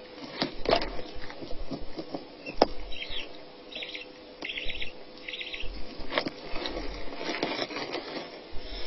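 Rustling and scattered sharp clicks as an adult owl shifts in dry leaf nest litter, with a run of short, high-pitched chittering calls from owl chicks about three seconds in.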